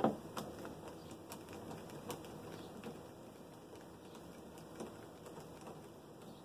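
Hands working on a Jeep Wrangler TJ's door panel and its parts: a knock at the start, then scattered light clicks and taps that thin out after the first couple of seconds.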